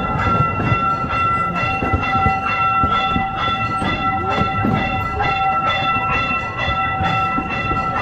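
Replica C. P. Huntington amusement-park train rolling along its track, heard from an open passenger car: a regular clacking about three times a second with a steady high-pitched whine over it.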